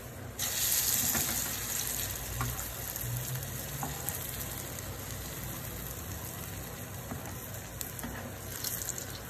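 Egyptian falafel (ta'miya) balls deep-frying in hot oil in a frying pan, with a steady sizzling hiss. The sizzle jumps up sharply about half a second in, then settles to an even frying hiss.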